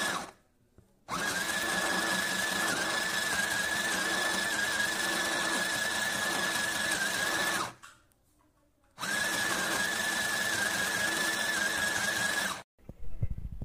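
WJM SHOP WXD 202 mini electric sewing machine stitching fabric, its motor running with a steady whine. It runs in bursts: a brief start, a long run of about six and a half seconds, a stop of about a second, then another run of about four seconds.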